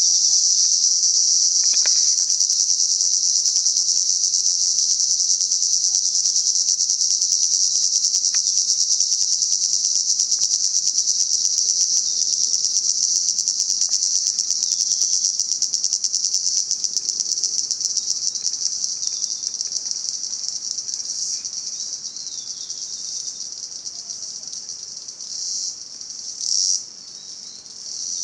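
Cicadas buzzing in a loud, continuous high-pitched drone with a fast pulsing texture. About halfway through, it slowly fades, then rises again in a few short swells near the end.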